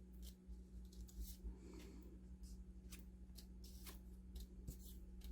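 Faint rustling and light ticks of paper pieces being handled and sorted by hand, over a steady low hum.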